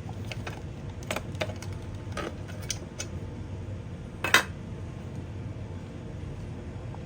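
Small metal parts and tools clicking and clinking as an Xbox Series X is taken apart by hand. There are several light clicks in the first three seconds, then one sharper, louder clink a little past four seconds, over a faint steady hum.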